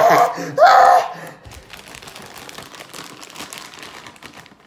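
A loud drawn-out vocal exclamation in the first second, then the crinkling rustle of a plastic trading-card pack wrapper being handled and torn, a dense fine crackle that fades toward the end.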